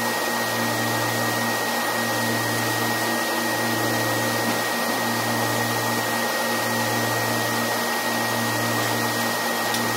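Drilling rig floor machinery running loudly and steadily: a constant mechanical noise with a low hum that pulses in an even beat about every second and a half, and a thin high whistle held on one note.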